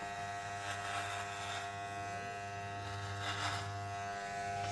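Cordless electric hair clipper running with a steady hum while it cuts hair at the back of a man's neck. Twice, about a second in and again a little past three seconds, there is a brief louder rasp.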